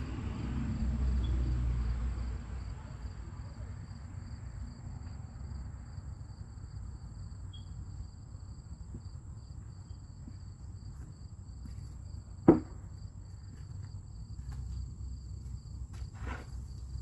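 Insects trilling steadily in two high-pitched tones, one of them a fast pulsing chirp, over a low rumble that is louder for the first couple of seconds. A single sharp knock comes about twelve seconds in.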